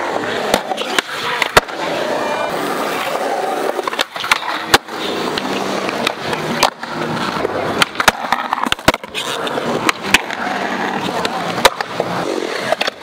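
Skateboard wheels rolling on concrete, with repeated sharp clacks as boards pop, hit ledges and coping, and land.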